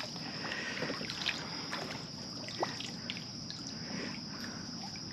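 A kayak drifting on a fast tidal current: soft water sounds around the hull, with scattered light ticks and knocks. A steady high-pitched insect chorus runs underneath.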